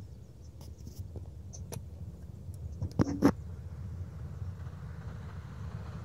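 Light clicks and two sharp knocks close together about three seconds in, from fingers handling a clear plastic frog case, over a low wind rumble on the microphone.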